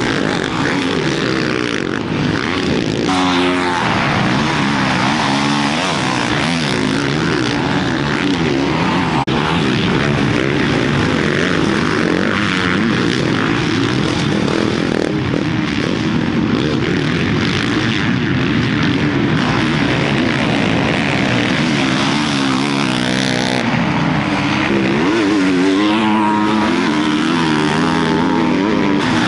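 Several off-road motocross motorcycle engines revving up and down, overlapping, as the bikes race around a dirt track.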